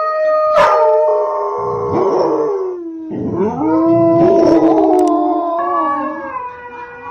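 Dogs howling: long, drawn-out howls that waver and glide in pitch, sometimes two voices overlapping.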